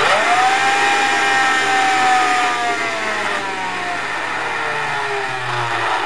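Silvercrest SAS 7.2 A2 cordless handheld vacuum cleaner switched on: its small DC motor and impeller whine up to speed within a fraction of a second, then the pitch falls steadily as the motor slows. The slowing is the sign of a worn 7.2 V nickel-metal hydride battery pack with very little capacity left.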